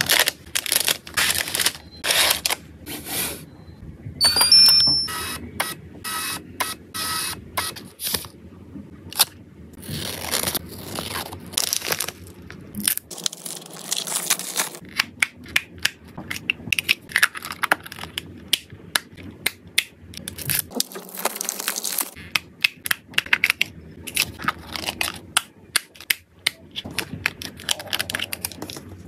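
Close handling of a snack bag and small plastic food boxes: packaging crinkling and a run of sharp plastic clicks and snaps as latches and lids are worked. A brief ringing clink sounds about four seconds in.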